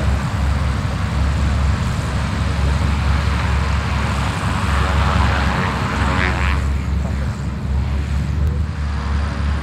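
Propeller engines of Extra 330LX aerobatic monoplanes running at taxi power, a steady low drone from several aircraft together. A louder rush swells briefly about six seconds in.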